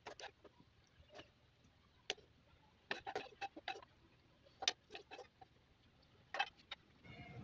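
Light clicks and taps of a serving spoon against a ceramic plate as aloo palak is spooned onto it, coming irregularly in small clusters with short quiet gaps between them.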